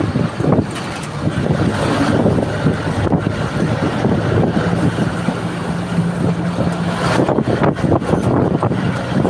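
A bus's engine running as it drives along the road, with wind rushing over a phone microphone held out of the window. A steady hum sits under the noise for a couple of seconds in the middle.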